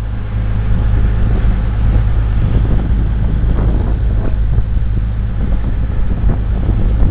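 Sightseeing boat's engine running with a steady low drone under a noisy rush of air and water.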